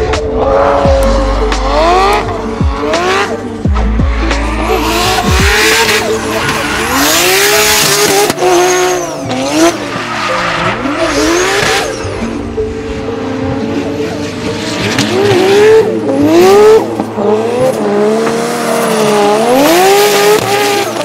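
Drift car's turbocharged 3.2-litre stroked RB30DET straight-six in a Nissan S14 Silvia, revving up and down again and again while the rear tyres squeal and skid through smoky slides.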